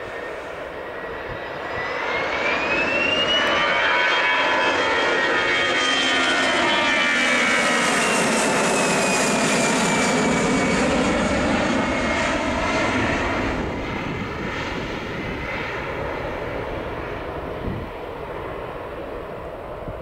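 Airbus A319's CFM56 jet engines spooling up to go-around thrust about two seconds in, a whine rising in pitch as the sound grows loud. The airliner then passes and climbs away, the whine slowly falling and the engine noise fading from about two-thirds of the way through.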